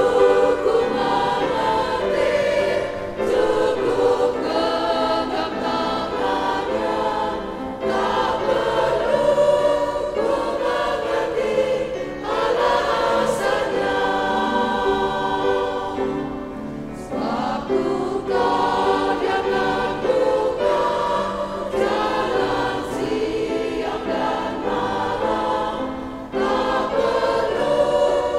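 Women's choir singing a hymn refrain in Indonesian, in phrases of a few seconds with brief dips between them.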